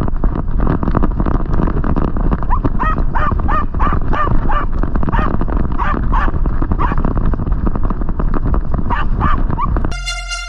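German hunting terrier barking in runs of short, high yelps while running through dry leaf litter, with a loud, constant rustle of leaves and harness. Music comes in near the end.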